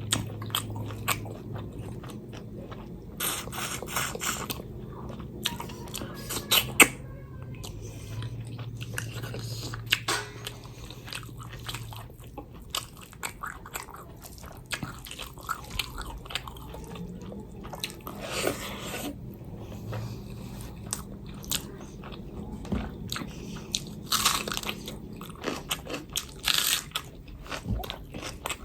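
A person chewing and biting food close to the microphone, with irregular crunches and wet mouth clicks, over a steady low hum.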